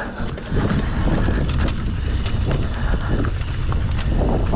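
Wind buffeting the microphone over the rumble and rattle of a mountain bike riding fast over rough dirt trail, with many small knocks from bumps.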